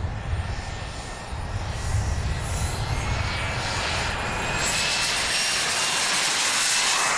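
Radio-controlled model jet's turbine engine whining during a takeoff roll. Its high whine rises slowly in pitch, and the rush grows louder from about five seconds in.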